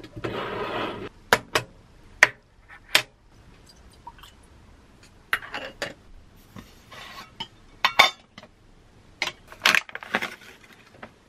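Aluminium moka pot parts knocking and clinking against a stainless steel counter as the pot is unscrewed and filled, a short rushing sound at the start and a string of sharp metal clicks after it, then the crinkle of a foil coffee bag being opened near the end.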